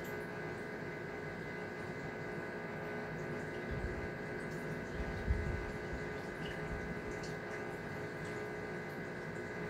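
Steady hum of reef aquarium pumps and circulating water, with a couple of low bumps near the middle.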